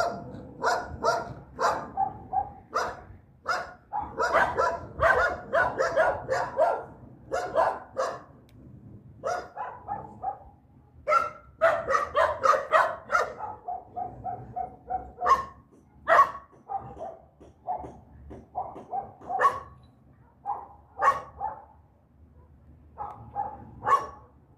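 Dog barking repeatedly in irregular runs of short barks, busiest through the first half and sparser toward the end.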